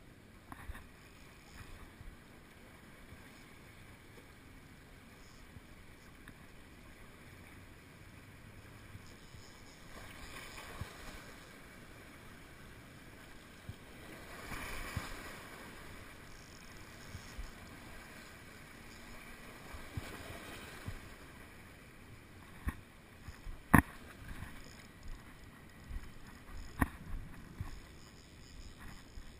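Sea water washing against a rock jetty, with wind on the microphone; the wash swells up a couple of times. In the last seconds come a few sharp knocks as the wearer clambers over the rocks.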